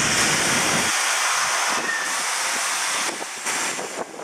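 Street traffic passing close: a steady rushing hiss of tyres on the road, with a low engine rumble in the first second that then drops away. A few short clacks follow near the end.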